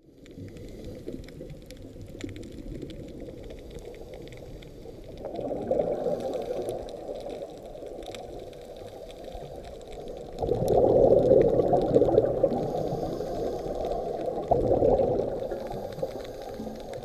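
Muffled underwater rushing and bubbling of a scuba diver's regulator breathing and exhaled bubbles, heard through a camera's underwater housing. It swells louder about five seconds in, and again from about ten to thirteen seconds.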